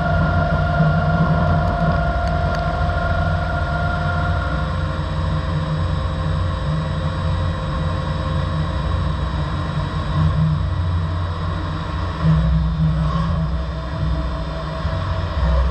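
MXS 400MT five-axis mill-turn CNC machine running with a steady low hum. A whine at two pitches stops about four and a half seconds in.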